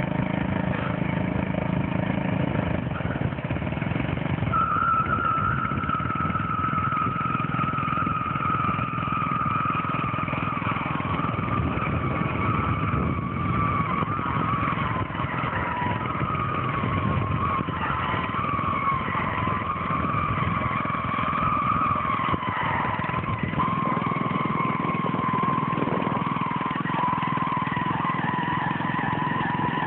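Old lawnmower's small engine running hard without let-up while its tyres spin in place. A high whine joins in about four and a half seconds in and slowly drops in pitch.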